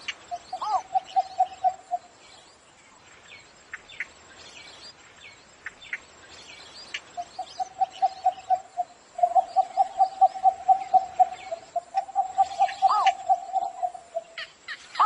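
Cinnamon bittern calling in rapid runs of low, evenly spaced notes, a short run near the start and a longer one from about seven seconds to near the end, with a rising-and-falling note among them. Thin high chirps of other birds are heard between the runs.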